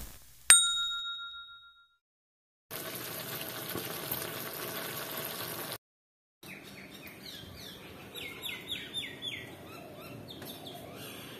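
A single bright chime rings out and fades about half a second in. Then comes a steady hiss for about three seconds, and after a short break a quieter hiss of curry simmering in a kadhai, with a run of quick, falling bird chirps near the middle.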